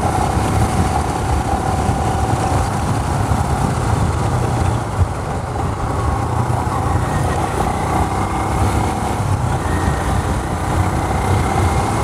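Royal Enfield Himalayan's single-cylinder engine running steadily at cruising speed of about 80 km/h, under a continuous rush of wind and road noise on the riding microphone.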